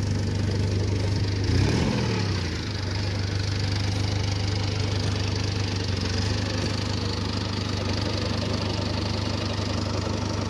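BAW Fenix dump truck's engine idling steadily, with a brief rise and fall in engine speed about two seconds in.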